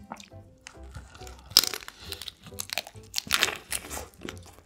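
Close-miked biting and chewing of soy-marinated raw crab, the shell crunching and cracking in irregular bursts, the loudest about a second and a half in and again past the three-second mark.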